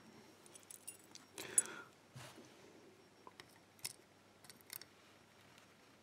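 Keys on a small key ring clinking faintly while a padlock plug with its key in it is handled, with a few light metal clicks. There is one louder clink about a second and a half in.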